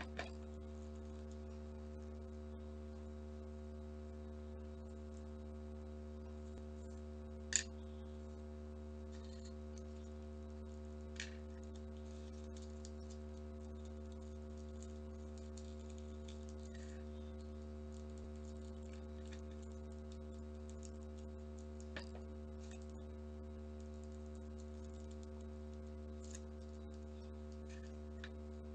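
A steady electrical hum with a few scattered light clicks and taps as paper, a bamboo skewer and a plastic straw are handled on a wooden tabletop; one sharp click about a quarter of the way through is the loudest.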